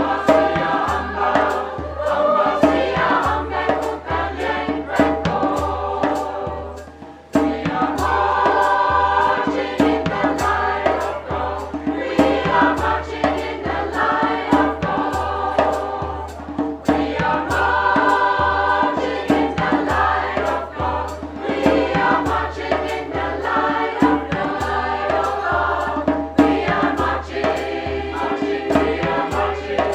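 Mixed choir of women's and men's voices singing a serenade in harmony, with a brief break between phrases about seven seconds in. A steady beat of light ticks, about two a second, runs underneath.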